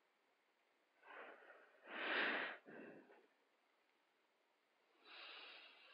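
A person breathing close to a microphone: a few noisy breaths with no voice in them, the loudest about two seconds in and another near the end.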